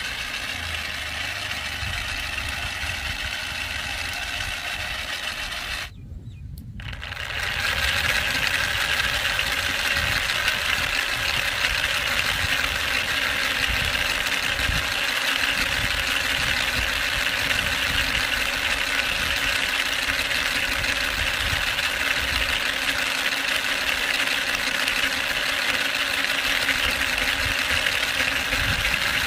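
Homemade mock radial engine driven by a 775 DC motor through gears, running with a steady mechanical whirr and rattle. The sound cuts out for under a second about six seconds in, then comes back louder and stays steady.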